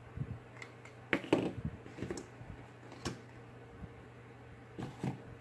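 Plastic bottles, a plastic spoon and a cardboard box being handled and set down on a tabletop: a scattered series of light knocks and clicks, loudest about a second in, over a faint steady hum.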